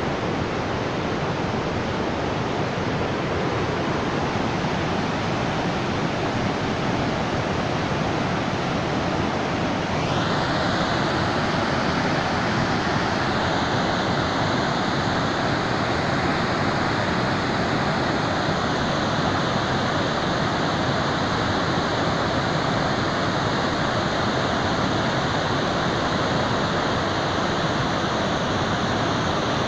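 Floodwater pouring through the open spillway gates of a dam: a steady, heavy rush of falling and churning water. About ten seconds in it becomes brighter and a little louder.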